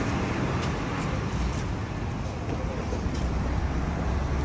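A road vehicle running, a steady low rumble of engine and road noise.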